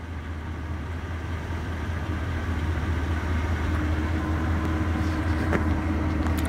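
Vehicle driving along a paved road: a steady low rumble of engine and road noise that slowly grows louder, with a couple of light clicks near the end.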